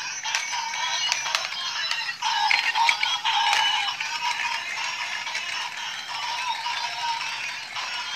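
Battery-operated toy vehicles playing an electronic tune with no bass, with plastic rattling and clicking from their moving parts throughout.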